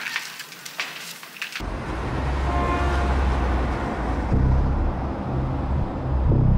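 Pots and dishes clinking, cut off suddenly after about a second and a half by a louder, steady low rumble with a few faint held tones over it.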